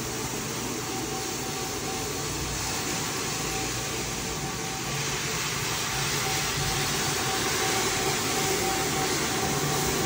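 A machine running steadily: a constant hum over a rushing noise, a little louder from about halfway through.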